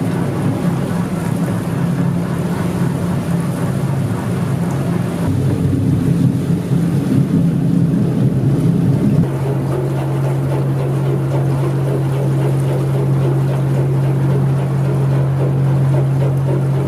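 Engine of a Venetian vaporetto water bus running steadily under way, a loud low hum with water and wind noise around it. About nine seconds in the hum drops to a slightly lower steady tone.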